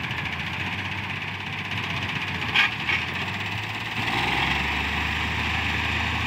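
Heavy diesel machinery engines running steadily, with two sharp clicks about two and a half seconds in. A deeper engine note comes up about four seconds in.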